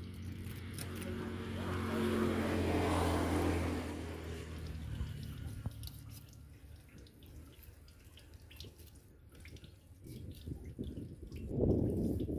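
A motor's drone swells up and fades away over the first few seconds. After it, faint scraping and tapping of a knife filleting a mahi mahi on a wet table, and a louder rough noise near the end.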